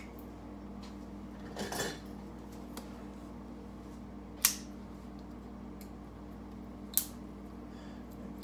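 A small knife scraping and clicking against the plastic shrink seal on an oil bottle's neck as it is cut away, the seal having no pull tab: a short scrape about two seconds in, then two sharp clicks, the first about halfway through and louder, the second near the end. A steady low hum runs underneath.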